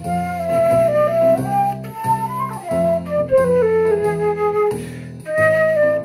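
Concert flute playing a slow melody of held notes that step up and down, with a brief pause about five seconds in, over a steady lower accompaniment.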